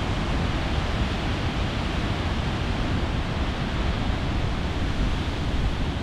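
Giant ocean waves breaking, a steady deep rushing of surf and churning whitewater.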